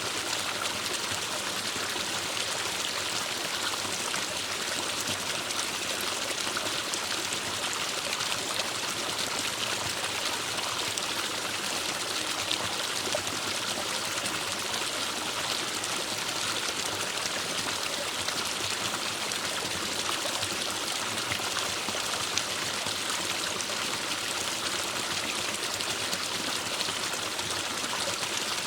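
Forest stream flowing steadily: a constant, even rush of running water, brightest in its higher hiss, with no change.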